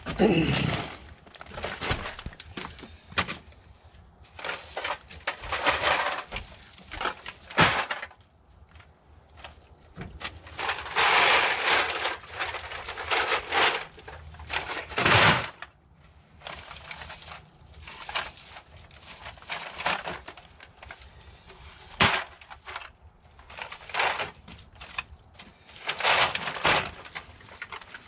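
Plastic bags full of empty aluminum cans rustling and the cans clattering inside as they are lifted and set down, in irregular bursts with a few sharp knocks.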